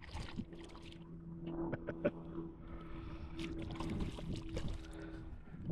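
A crappie being reeled in and landed in a small fishing boat: scattered clicks, knocks and splashy rustles over a steady low hum. The hum stops near the end.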